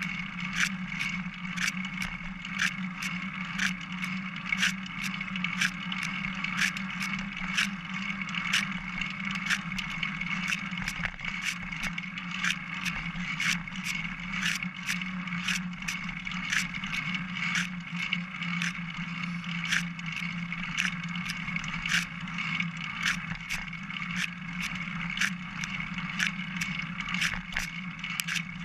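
Single-speed bicycle rolling along a trail, heard from its own frame: a steady rolling hum with regular sharp ticks about one and a half times a second and light rattling.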